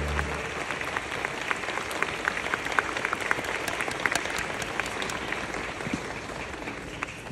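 Audience applauding in a hall as the song's final low note dies away just at the start; the clapping thins and fades gradually toward the end.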